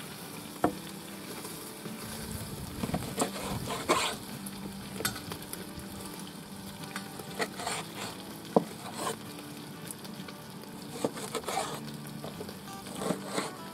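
Kitchen knife cutting raw beef on a wooden cutting board, with a few sharp knocks of the blade against the board, over a steady sizzle of pork fat (salo) rendering in a cauldron.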